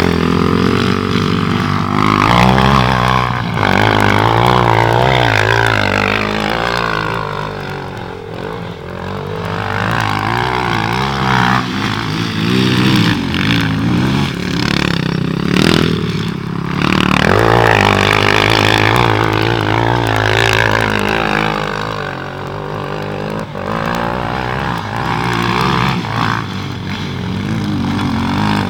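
Single-cylinder four-stroke sport ATV engine revving up and down over and over, its pitch repeatedly climbing and falling as the throttle is worked.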